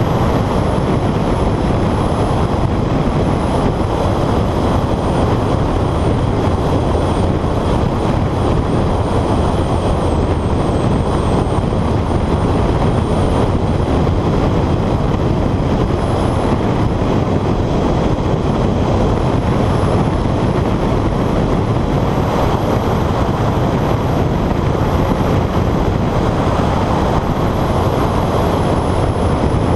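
Honda CR-X driven at speed on a track, heard from a camera mounted outside the car: steady, loud wind noise on the microphone with the engine and tyres running underneath.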